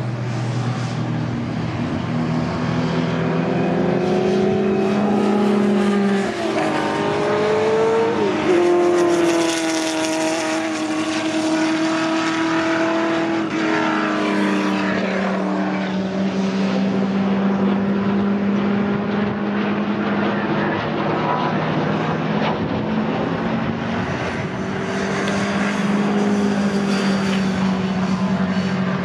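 Historic GT and touring race car engines running at speed on a circuit, loud throughout. One engine climbs in pitch and drops sharply at a gear change about eight seconds in, then a steadier drone continues.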